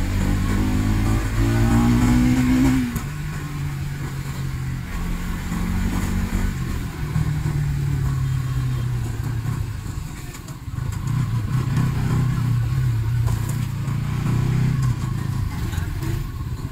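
Motorcycle engine pulling along under way. It revs up with a rising note for the first three seconds, drops back suddenly, then cruises with the throttle easing and opening again.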